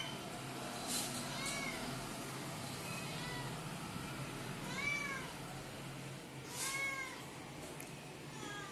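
Young tabby cat meowing about five times, roughly two seconds apart, each meow a short call rising then falling in pitch; the two near the middle are the loudest. A hungry cat begging for food.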